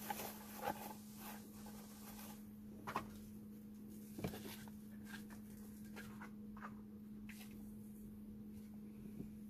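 Faint scattered clicks and soft taps, about ten of them, the two loudest about three and four seconds in, over a steady low hum.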